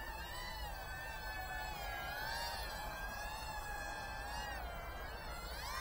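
Tiny 1S FPV quadcopter's motors and Gemfan 2-inch props whining in flight, the pitch wavering a little with throttle, then rising sharply near the end as it is throttled up.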